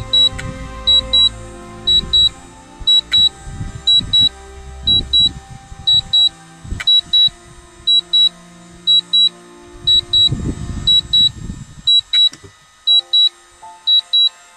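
Repeating high double beep, about one pair a second: a DJI Mavic Pro flight warning alert. Background music plays underneath.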